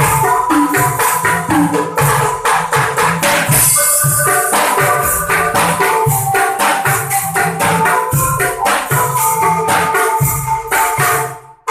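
Angklung ensemble playing a fast, upbeat song. Shaken bamboo angklung and a mallet-struck bar instrument carry the tune over a quick beat on a plastic barrel drum, small drums and cymbals, with a cymbal splash about four seconds in. The music breaks off briefly near the end.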